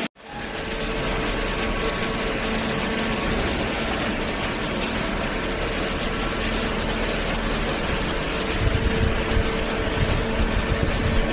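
Cardboard baling machinery running in a steady hum with a fixed tone, with low rumbling knocks in the last few seconds. The sound drops out for a moment at the very start.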